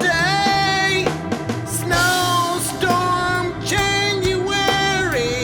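A song playing: a sung vocal line with long held, gliding notes over drums and a bass beat.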